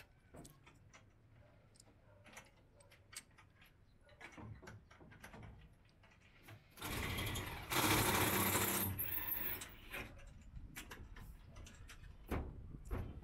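Cordless drill running in one burst of about three seconds, about seven seconds in, fastening solar panel hardware to the roof rails. Scattered light clicks and knocks of metal parts and tools being handled come before and after it.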